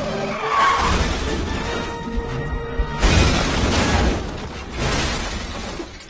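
Cartoon soundtrack music with a loud crashing, smashing sound effect that starts suddenly about three seconds in and dies away near the end.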